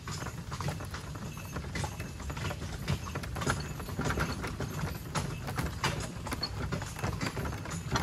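A horse's hooves clip-clopping steadily on a gravel track while pulling a cart, with the cart's wheels rumbling and crunching over the gravel beneath.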